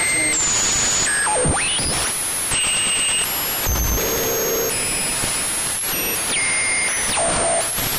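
Synthesized sci-fi radio interference, like a radio being tuned across an alien signal. A dense hiss of static carries whistling tones that jump from pitch to pitch every half second or so. A quick downward sweep comes about one and a half seconds in, and a short low tone about four seconds in.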